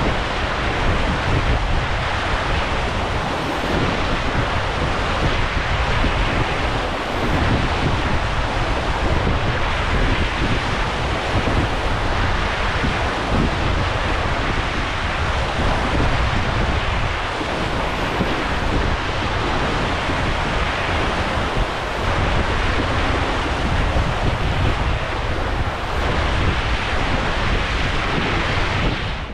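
Wind buffeting a boat-mounted microphone over the rush of water along the hulls of a Dragonfly 25 trimaran under sail; a steady, heavy rumble of wind and water.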